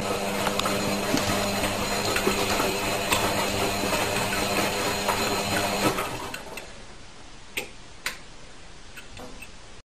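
Front-loading washing machine running, a steady mechanical hum and whir for about six seconds, then much quieter, with a couple of sharp taps near the end.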